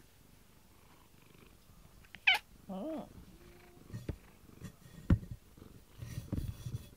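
Tabby cat purring, with a short chirping meow a little over two seconds in. It then rubs its face against the camera, and its fur brushes and bumps the microphone.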